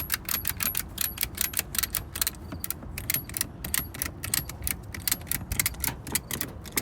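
Retractable ratchet strap being cranked tight, its ratchet and pawl clicking several times a second in runs with short pauses between strokes of the handle.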